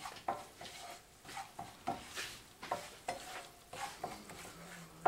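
A cooking utensil stirring in a frying pan: irregular scrapes and light clinks against the metal, with a faint sizzle of food frying in butter.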